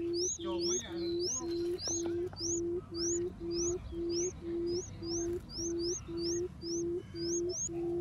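Barred buttonquail's 'cút um' booming call: a low, steady hoot at one pitch, repeated about twice a second. Thin, high rising chirps from another bird run over it.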